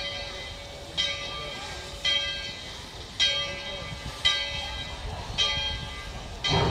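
The locomotive bell of Tweetsie Railroad's No. 12, a narrow-gauge 4-6-0 steam locomotive, ringing steadily about once a second as the engine starts to move off. Near the end a low rushing burst comes in under the bell.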